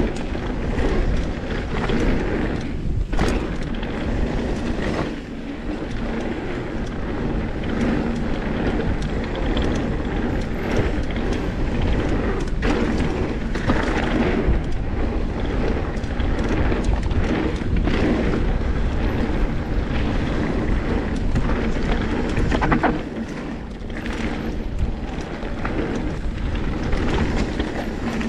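A full-suspension Propain Tyee mountain bike running fast down a gravel trail: tyres rumbling and crunching over loose gravel, with frequent rattles and knocks from the bike over bumps and wind rushing over the camera's microphone.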